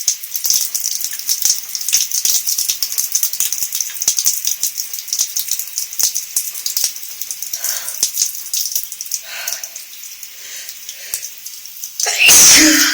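Shower spray hitting a body, then a few short breaths and one loud sneeze about a second before the end, a sneeze from a head cold.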